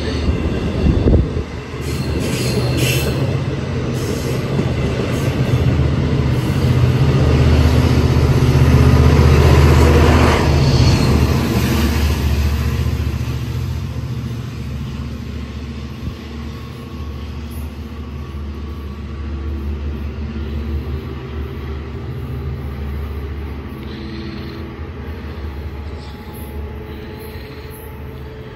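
Long Island Rail Road diesel push-pull train of bilevel coaches passing, with a sharp thump about a second in. The locomotive's diesel engine grows loudest about nine seconds in as it goes by, then slowly fades as the train pulls away.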